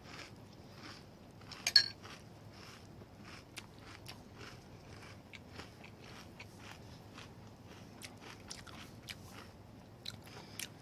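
Close-up crunching and chewing of Cocoa Pops cereal in milk, a run of small irregular crunches, with one louder sharp click about two seconds in.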